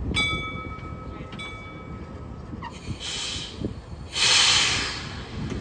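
Heritage electric tram approaching: its bell rings twice, each ding ringing on for about a second, then two hisses of air, the second louder and longer, over the low rumble of the tram on its rails.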